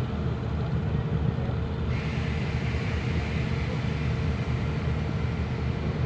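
A large engine running steadily: an even low rumble with a constant hum.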